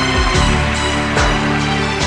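Music with a regular beat over held, sustained chords and a moving bass line.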